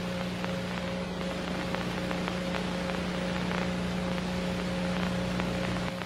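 Steady low electrical hum with a fainter higher tone under an even hiss of static, with scattered faint clicks and crackles: the dead-air noise of an old broadcast or tape recording.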